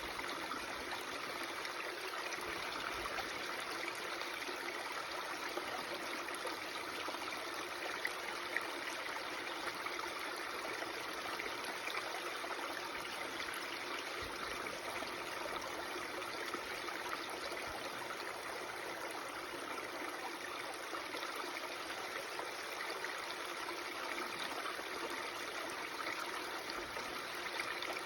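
Babbling stream: running water, steady and even.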